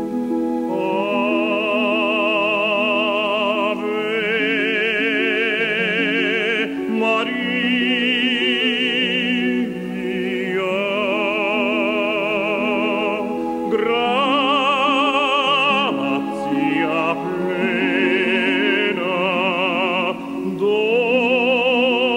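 Operatic solo voice with a wide vibrato singing long held phrases over sustained instrumental accompaniment.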